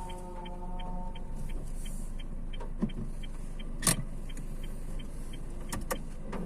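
Vehicle running, with a regular light ticking about three times a second and a few sharp clicks, the loudest about four seconds in.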